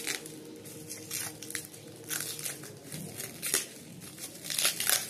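Plastic packaging wrap crinkling and tearing as it is picked apart by hand: irregular crackles, with one cluster about two seconds in and a louder one near the end.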